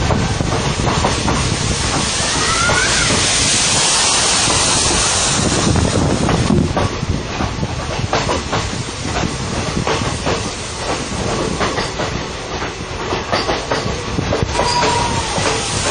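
Train running, with its wheels clicking rhythmically over the rail joints and the steady rumble of the carriage. A stretch of loud hiss comes in the first few seconds, and short wheel squeals come about two seconds in and again near the end.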